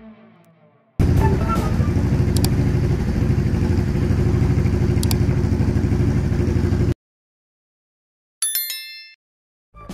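A motor-like running sound with a fast, even pulse lasts about six seconds and cuts off suddenly. A short pitched tone sounds near the end.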